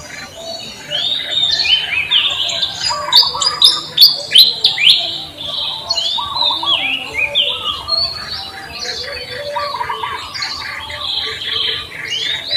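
Songbirds chirping together in a dense chorus of short, quickly falling chirps, with a run of louder, sharper descending calls about three to five seconds in.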